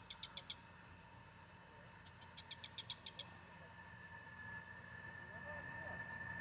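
A bird calling in two quick runs of about eight sharp, evenly spaced notes, one at the start and one about halfway through, over a faint steady high-pitched drone.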